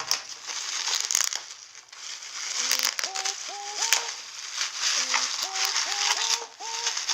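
Packaging rustling and crinkling with scattered small clicks as the part is unboxed. Background music with rising, sliding notes comes in about two and a half seconds in.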